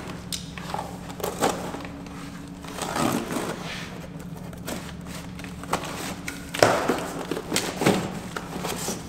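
Cardboard boxes being opened and handled: flaps and packing rustling and scraping, with a few sharp knocks, the loudest about two-thirds of the way through. A faint steady hum runs underneath.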